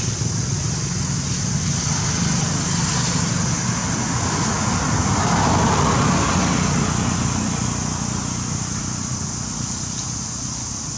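Road traffic: a vehicle passing, a steady rumble and hiss that grows to a peak about five or six seconds in and then slowly fades.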